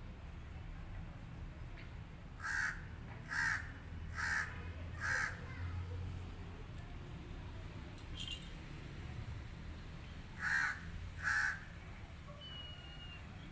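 Crow cawing: a run of four harsh caws, then two more near the end.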